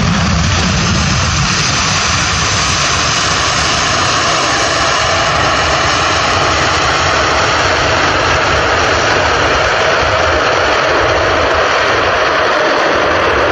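Boeing 747 freighter's four jet engines on the landing rollout: a loud, steady roar with a faint whine over it, on a wet runway.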